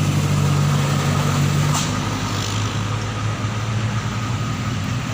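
Tour bus engine running with a steady low drone as the bus climbs the hill past the roadside, easing off a little about two seconds in.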